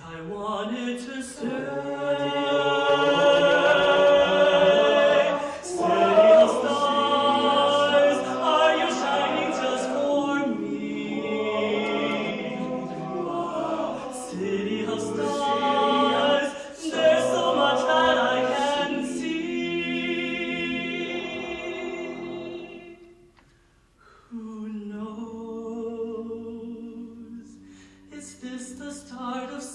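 All-male a cappella group singing in close harmony, phrase by phrase with short breaks between lines. About three-quarters of the way through the singing fades to a brief pause, then resumes more softly.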